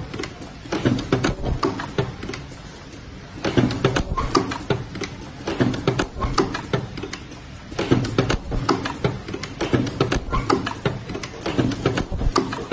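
Semi-automatic mask ear-loop spot welding machine running, its mechanism clattering in repeated bursts of rapid clicks with short quieter gaps between cycles.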